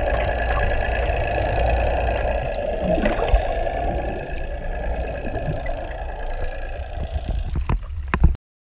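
Muffled underwater rushing of water over a camera housing as it is hauled up a fishing line, over a steady hum from a boat. Sharp splashing near the end as the camera breaks the surface, then the sound cuts off.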